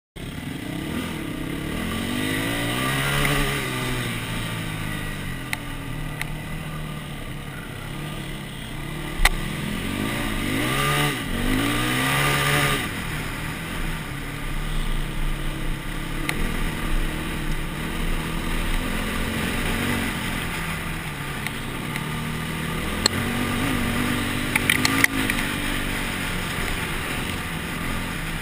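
Dirt bike engine running, its pitch rising and falling repeatedly as the throttle is opened and rolled off over rough sandy and rocky ground. Occasional sharp knocks cut through it, one about nine seconds in and a quick cluster near the end.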